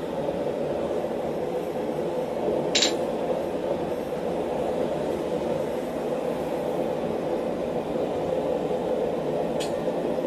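A steady rushing hum from the shop, with a sharp metal clink about three seconds in and a fainter one near the end, as a hammer is handled at a steel guillotine tool.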